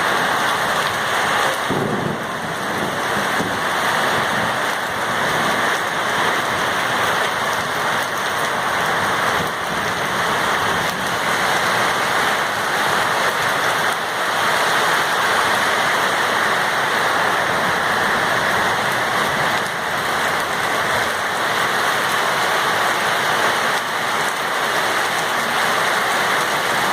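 Heavy rain pouring down in a thunderstorm, a steady dense hiss that holds at much the same level throughout.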